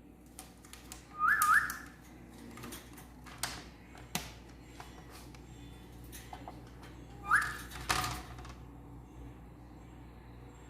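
Pet parrot giving short rising whistles, twice: a quick double whistle about a second in and another about seven seconds in, with scattered clicks between.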